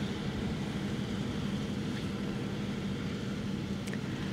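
Steady outdoor background noise: an even low rumble with a faint constant hum and nothing else standing out.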